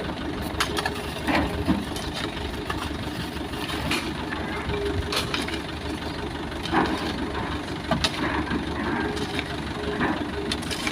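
Heavy diesel engine running steadily at low revs, with scattered short knocks and clanks over it.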